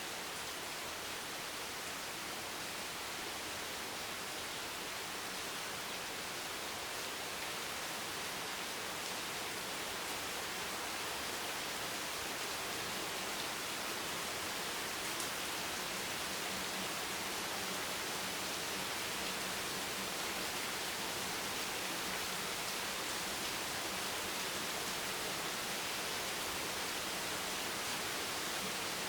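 Heavy rain hammering steadily on a beach bench, an even hiss of countless drops without let-up.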